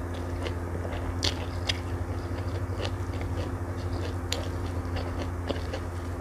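Close-miked chewing of a mouthful of rice, omelette and stir-fried water spinach, with scattered small wet mouth clicks. A steady low hum runs underneath.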